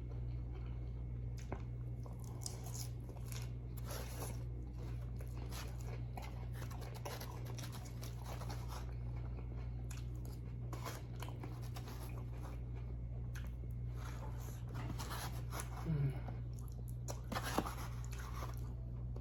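A person chewing and biting food, with scattered crunches and wet mouth clicks, over a steady low hum.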